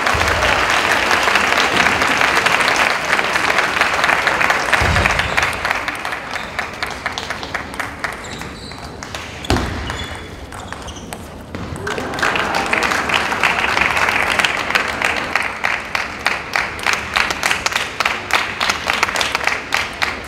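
Spectators in an arena applauding after a won point. The clapping dies down about halfway through, then swells again into dense, regular clapping.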